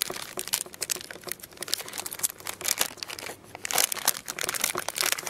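Plastic candy wrapper crinkling and crackling in the hands as it is unwrapped, a dense run of irregular crackles.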